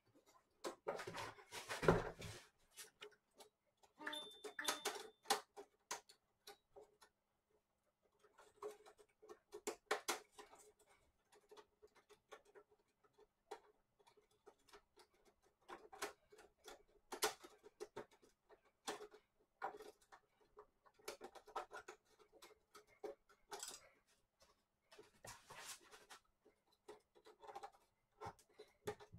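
Scattered clicks, taps and knocks of hands handling and working on an LED TV's metal back chassis and plastic parts, with a louder thump about two seconds in.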